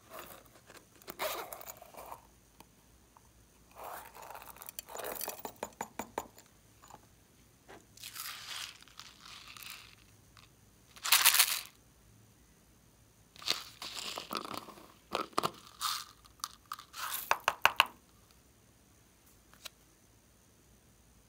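Hands handling plastic toys and packaging: irregular bursts of clicking, crinkling and tearing noise with quiet gaps between, the loudest a little past halfway.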